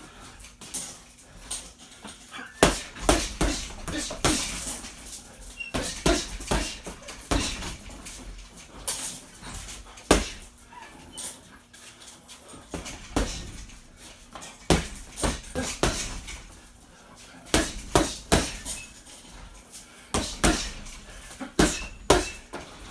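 Boxing gloves punching a hanging heavy bag in quick combinations, clusters of two to four sharp thuds every few seconds.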